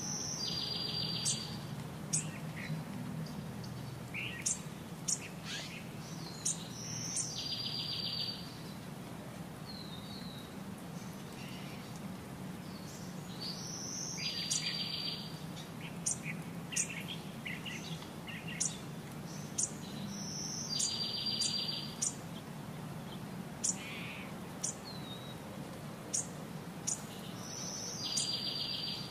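Small birds chirping, with many short high chirps and a trilled phrase that comes back about every six or seven seconds, over a low steady hum.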